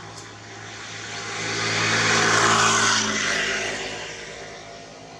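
A passing engine: a rushing engine noise with a low steady hum swells over about two seconds, peaks in the middle, and fades away, the way a vehicle or aircraft passing by does.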